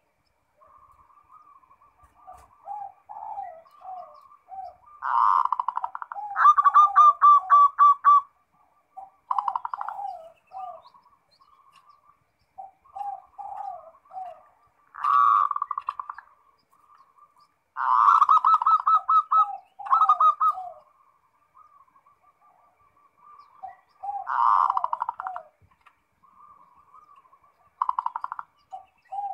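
Zebra dove (perkutut) cooing in repeated song phrases every few seconds. Each phrase is a quick run of rattling trilled notes that drops into lower rolling coos.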